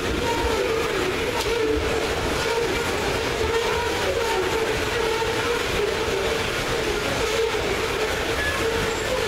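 Loaded coal hopper cars of a freight train rolling past: a steady rumble and rattle of steel wheels on rail, with a wavering mid-pitched tone held under it.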